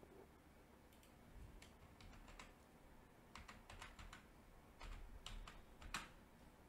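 Faint keystrokes on a computer keyboard, about fifteen short taps in irregular clusters as a word is typed, the last one a little sharper.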